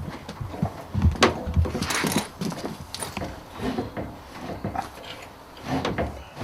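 Irregular metallic knocks, clunks and scrapes as a heavy voltage-regulator unit is shifted and set down in a van's equipment locker.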